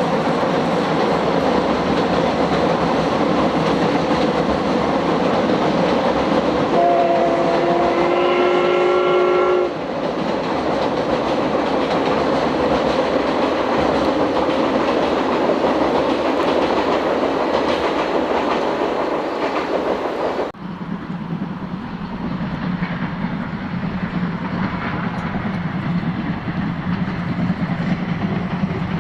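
The C57 180 steam locomotive runs past with a loud, steady rush of exhaust and wheel noise. About seven seconds in, its steam whistle sounds once for about three seconds as a chord of several tones. The sound then cuts suddenly to another passing of the locomotive, quieter and lower in pitch.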